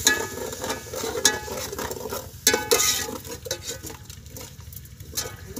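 Metal ladle stirring frying masala in an aluminium pot, clinking and scraping against the pot several times, over the faint sizzle of the cooking masala.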